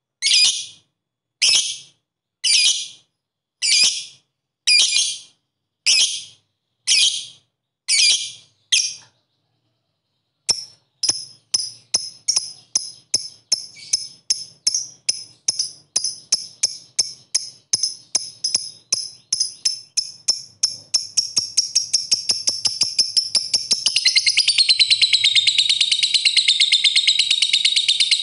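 Fischer's lovebird calling: sharp high chirps about once a second, a short pause, then rapid 'ngetik' ticking that speeds up steadily. The ticking merges into the long continuous 'ngekek' trill, louder, in the last few seconds.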